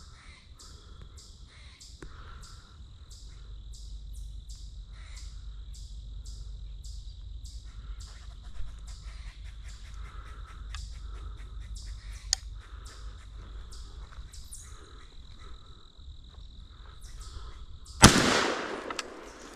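A squirrel barking over and over, about two to three short calls a second, over a steady high insect drone. Near the end a single-shot .410 shotgun fires once, by far the loudest sound.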